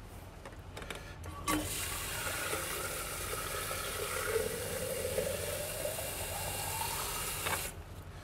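Tap water running from a sink faucet into a sample container. The faucet is turned on with a click about a second and a half in and shut off near the end, and the pitch of the filling rises as the container fills.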